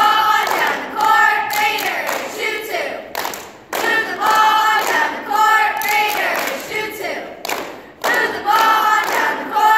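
A group of girls singing a short phrase in unison, starting it again about every four seconds, with hand claps along with the singing.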